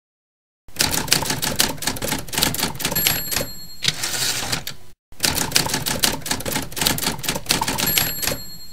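Typewriter sound effect: rapid key clatter with a bell ding about three-quarters of the way through each run. There are two runs of about four seconds each, with a brief break between them.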